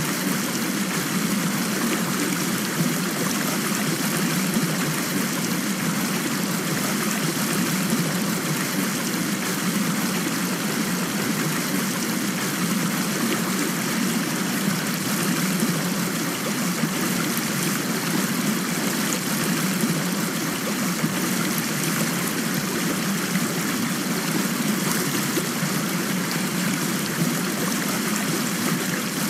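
Steady rushing water sound, an even hiss with no separate drops or splashes standing out.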